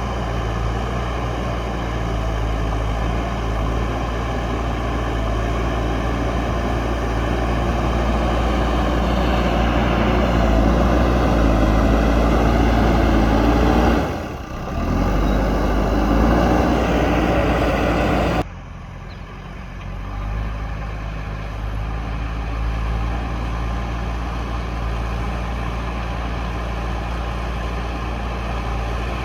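JCB backhoe loader's diesel engine running under load while pushing soil, growing louder with a rising note partway through and dipping briefly. About two-thirds of the way in the sound drops abruptly to quieter, steady running.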